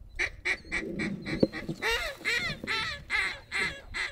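Duck call blown in a quick, even series of loud quacks, about two to three a second, calling a passing flock back to the decoys. A single sharp click about a second and a half in.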